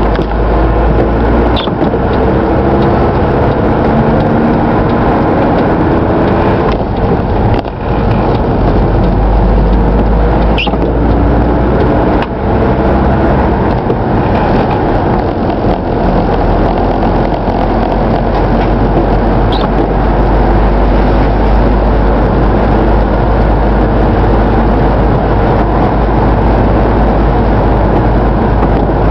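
Steady car cabin noise while driving on a wet road: engine, tyre and road noise under a deep rumble, with a few short clicks.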